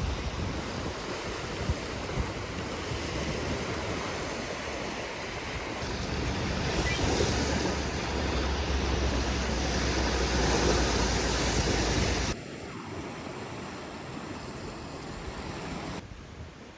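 Wind rushing and buffeting the microphone, growing louder in a gust partway through. It drops off abruptly twice near the end.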